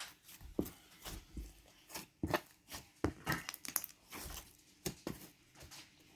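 Glossy slime being squeezed and stretched by hand, making irregular sticky clicks and small pops as air pockets burst.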